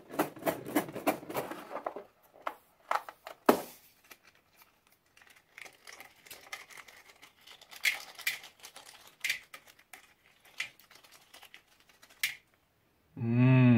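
A rubber balloon full of small plastic beads being handled and squeezed, crinkling at first, then scattered small clicks and ticks as beads spill into a glass bowl of slime. Near the end a brief low hummed voice sound.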